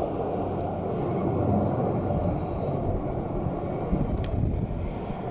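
AH-64 Apache attack helicopters flying past, a steady low rotor and engine rumble that flutters slightly.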